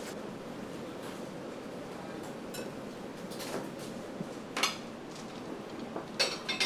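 Kitchen dishes and utensils clinking: a few sharp clatters of bowls and a ladle over a steady rushing kitchen background, the loudest clinks about four and a half seconds in and near the end.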